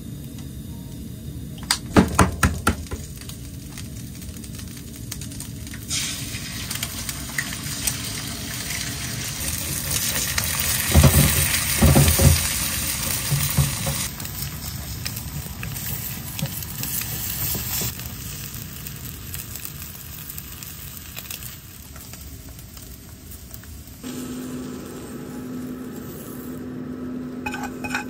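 Food frying in oil in a pan on a portable gas stove: a steady sizzle, loudest about ten to thirteen seconds in, with clattering knocks of pan and utensils about two seconds in and again around eleven to twelve seconds in.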